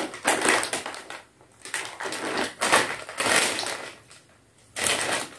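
Plastic snack packet crinkling as it is handled, in several irregular rustling bursts.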